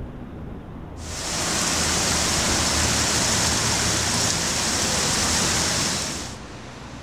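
Steady rushing hiss of thousands of small metal flaps of the Wind Arbor shimmering in the wind. It swells in about a second in and fades out near the end.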